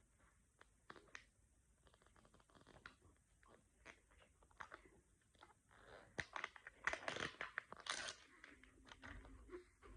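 Toy capsule's wrapping being torn open by hand, with scattered small crackles and crinkles that thicken into a louder burst of crinkling and tearing from about six to eight seconds in.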